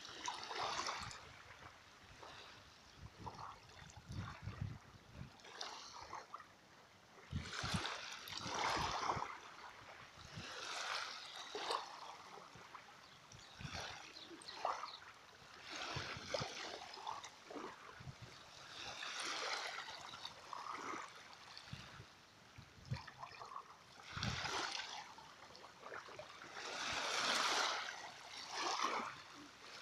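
Small sea waves lapping and splashing, coming in uneven swells every couple of seconds, with a few low thuds among them.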